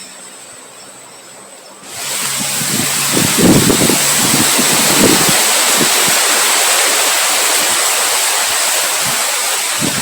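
Strong wind rushing. It swells abruptly into a loud, steady hiss about two seconds in, with low gusts rising and falling beneath it.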